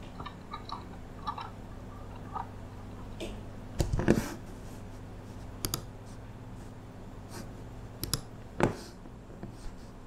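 Computer keyboard and mouse clicks at a desk: a run of light clicks in the first couple of seconds, then scattered sharper clicks and knocks, the loudest a cluster about four seconds in and another near nine seconds. A steady low hum lies underneath.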